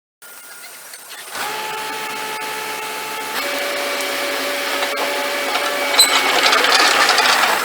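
Mustang MTL25 compact track loader's diesel engine and hydraulics running, sped up, with several steady tones. It gets louder about a second and a half in and changes pitch partway through as the machine works.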